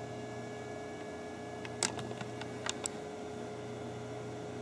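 Steady electrical hum over small-room tone, with a few light clicks about two seconds in.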